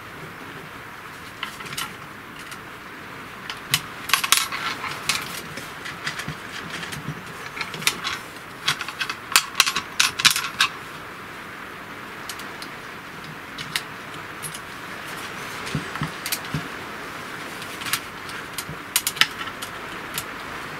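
Small metal screws and fittings clicking and jingling as they are handled and set down, in scattered bursts of light clicks with two busier clusters.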